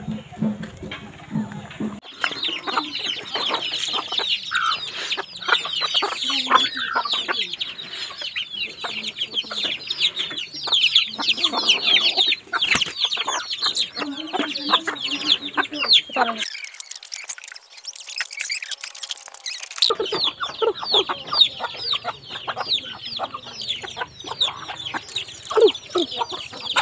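A flock of chickens: many chicks peeping in a dense, continuous stream of short high calls, over hens clucking. The peeping sets in about two seconds in.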